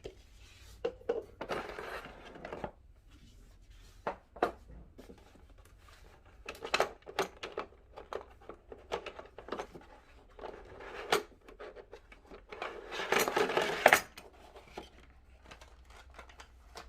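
Clicks, knocks and short rattles of hard metal and plastic parts of an espresso machine being handled while its grinder is checked, because the grinder has stopped grinding. There are two longer rattling stretches, about two seconds in and about thirteen seconds in.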